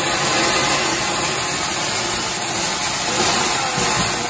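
A ground fountain firework (flower pot) spraying sparks with a loud, steady hiss.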